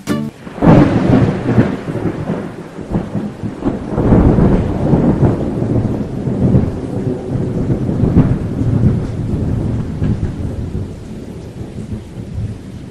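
Thunderstorm: rolling thunder over steady rain. It starts suddenly about half a second in, swells loudly several times, and eases a little near the end.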